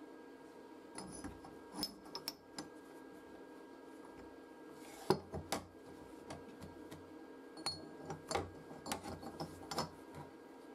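Scattered clinks and knocks of steel parts being handled: a welded steel spindle housing tube picked up, turned and fitted with collars on a metal plate. The loudest knock comes about five seconds in, over a faint steady hum.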